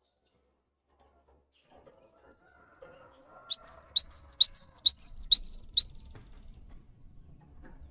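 Cinereous tit (gelatik batu) singing: a quick, high two-note phrase repeated about six times over some two seconds, starting about three and a half seconds in.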